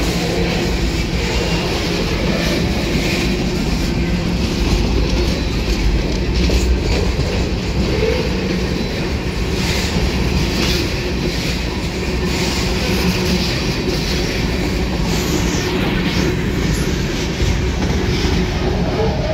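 Loud, steady rumble of a freight train's covered hopper cars rolling past on steel wheels, with irregular clacking as the wheels cross rail joints.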